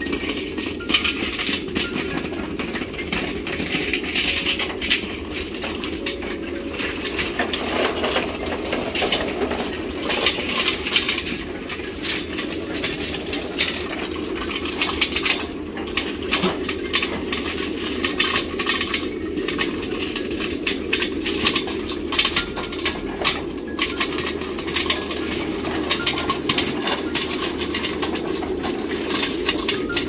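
Metal handcarts loaded with tubs of grain rattling and clinking as they are pushed over concrete, with many small knocks over a steady rolling rumble.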